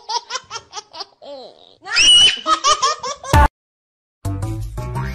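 A person laughing hard in quick repeated high-pitched bursts, with a shrill shriek about two seconds in. The laughter cuts off suddenly, and after a short gap music starts near the end.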